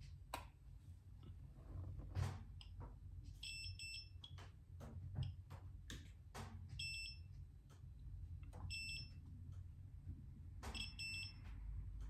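Multimeter beeping as its probes are touched to surface-mount capacitors on an engine control unit's circuit board, testing them for a short: short high beeps, mostly in pairs, about four times a few seconds apart, with small clicks of the probe tips.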